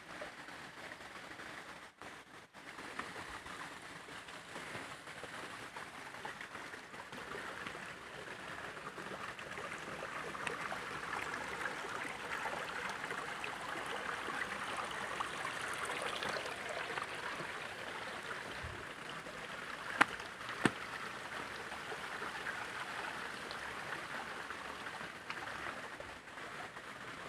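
Shallow rocky stream, water running over and between stones as a steady rushing, louder for a while in the middle. Two sharp knocks come close together about two-thirds of the way through.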